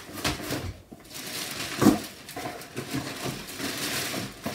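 Clear plastic packaging crinkling and rustling against cardboard as plastic-wrapped stroller parts are lifted out of a box, with a sharp knock a little under two seconds in.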